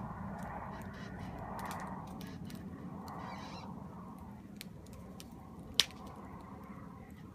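Wood campfire crackling, with small scattered pops and one sharp, loud pop about six seconds in, over a soft rushing that swells and fades.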